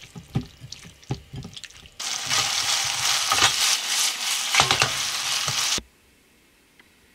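Hands squishing raw chicken breast pieces in a glass bowl, with small wet squelches and knocks. About two seconds in, chicken breast pieces frying in olive oil in a frying pan give a loud, steady sizzle as they are tossed and stirred; the sizzle cuts off suddenly near six seconds.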